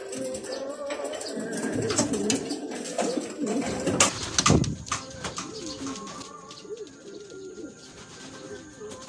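Racing pigeons cooing repeatedly, with a sudden loud flutter and clatter about four seconds in.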